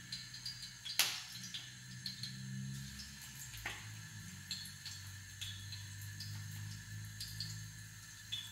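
Potato pancake batter sizzling and crackling in hot oil in a frying pan as it is poured in from a blender cup, with two sharp knocks, about one and three and a half seconds in.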